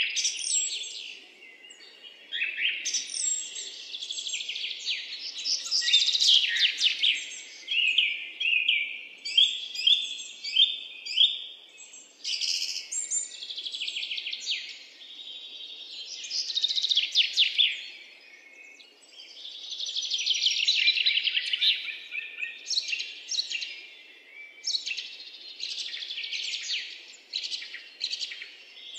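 Birds chirping, with rapid trills of repeated high notes, going on with only brief lulls.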